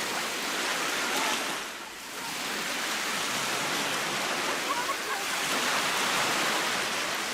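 Baltic Sea surf washing onto the beach: a steady rushing wash of breaking waves that dips briefly about two seconds in, then swells again.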